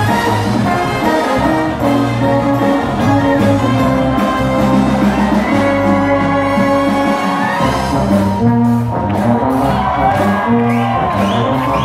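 Wind band playing: brass and woodwind notes held over a moving bass line. A regular beat of sharp strokes comes in about two-thirds of the way through.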